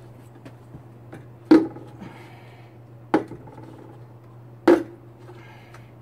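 Snap-on plastic lid of a 5-gallon water bucket being pried loose around its rim: three sharp plastic knocks about a second and a half apart, with faint rustling between, over a steady low hum.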